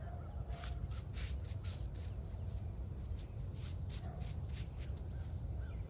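Gloved hands tearing and pulling grass from around a headstone's base, a string of irregular short rustling rips over a steady low rumble.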